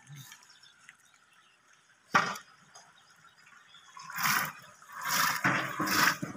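Soaked chickpeas pushed by hand off a steel platter into a large pot of steaming liquid, pouring and splashing in several rushes from about four seconds in. A single short clatter comes about two seconds in.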